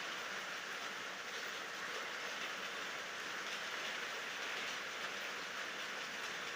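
Steady rain falling, an even hiss with no separate drops or breaks standing out.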